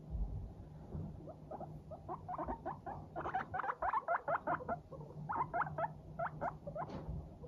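Guinea pig chutting while it walks: a rapid string of short 'pu-pu-pu' calls, several a second, that builds from about a second in and comes in two dense runs. This is the contented, good-mood call of a guinea pig exploring.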